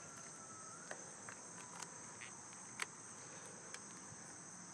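Faint, steady high-pitched chirring of crickets, with a few light clicks, one a little louder just past the middle.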